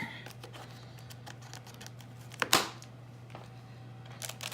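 Cardboard box packaging being handled and opened: light clicks and rustles, with one louder brief rustle about two and a half seconds in, over a steady low hum.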